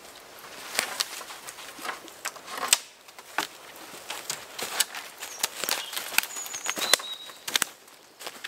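Footsteps crunching through dry leaf litter while dead branches are handled and dragged, with irregular cracks and snaps of twigs and sticks; the loudest snap comes about a third of the way in.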